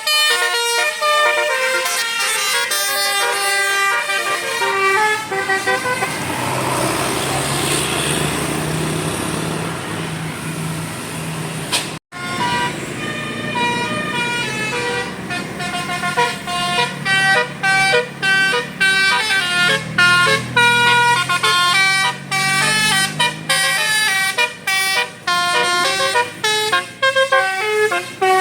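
A bus's telolet Basuri musical horn playing quick melodies of short stepped notes, with the bus engine running underneath in places. The sound breaks off abruptly about twelve seconds in, and another horn melody starts at once.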